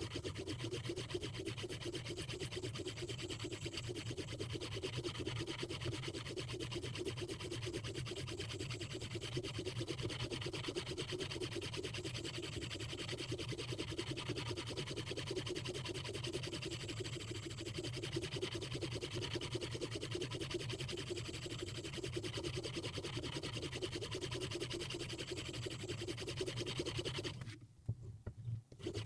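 Hapstone 4000 semi-natural stone (4000-grit milled quartz on an aluminium blank) rubbed in quick, continuous strokes along the edge of a Mora Bahco knife in a Hapstone RS guided sharpener: finish sharpening. The stroking stops briefly near the end, then resumes.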